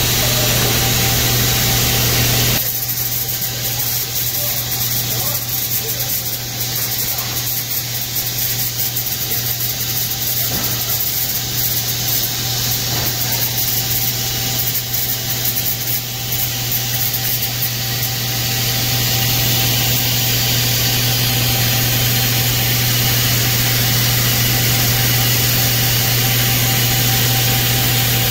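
A blueberry sorting and packing line running: conveyor belts and their electric gear motors give a steady machine hum with a low drone. The sound drops a little about three seconds in and comes back up after about twenty seconds.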